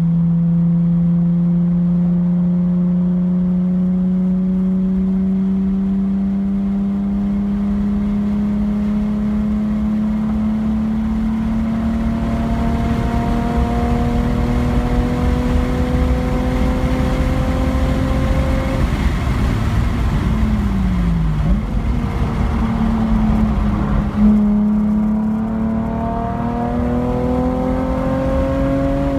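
Car engine at a track day, pulling hard in one long gear, its note climbing slowly as the speed builds. About two-thirds of the way through, the note breaks off and dips as the car brakes for a corner, with a sharp jump in level. The engine then climbs again as it accelerates out.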